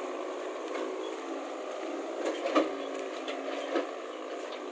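Tractor engine running steadily while pulling a trailer, with a couple of sharp knocks, the loudest about two and a half seconds in and another near four seconds.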